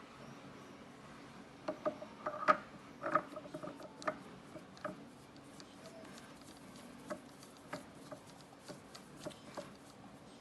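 Light, irregular clicks and taps of metal parts on a small lathe being handled, a few with a short metallic ring; they are densest about two to five seconds in, then sparse.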